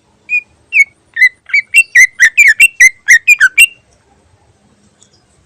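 Green leafbird (cucak ijo) singing a phrase of loud, short whistled notes that bend in pitch. There are about a dozen of them, coming faster and faster, and they stop about four seconds in.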